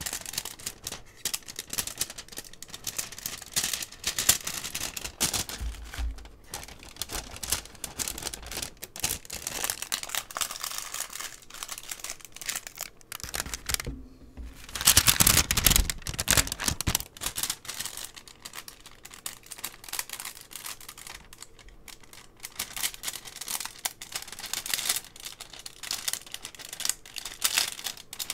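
Paper and plastic packaging rustling and crinkling as enamel pins are put back into their paper sleeves and a clear plastic bag, with a louder spell of crinkling about halfway through.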